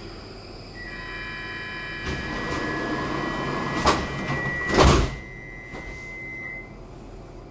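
Stockholm metro train's sliding doors closing, with two sharp thuds about four and five seconds in, over a steady high electrical tone from the train.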